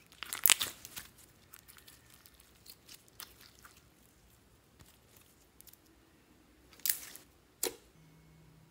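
Fluffy slime being stretched, folded and squished by hand over a glass dish, making sticky clicking and popping sounds. These are densest and loudest in the first second, scattered and faint over the next few seconds, and end with two sharp snaps near the end.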